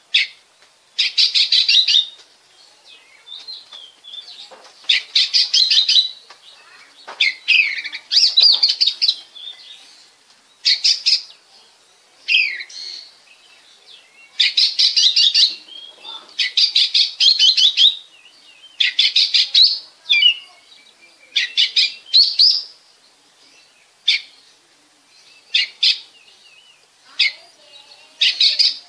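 Oriental magpie-robin singing: about a dozen loud phrases of rapid, trilled and whistled notes, each about a second long, with short pauses between them.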